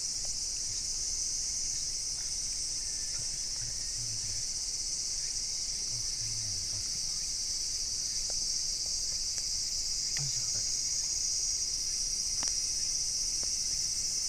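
A steady, high-pitched chorus of insects shrilling without a break, with a few faint low knocks under it.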